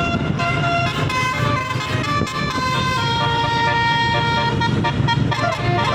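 Tour bus's multi-tone basuri telolet horn playing a tune: a run of short notes changing pitch every half second or so, then a longer held note, then quicker notes near the end, over a low steady rumble.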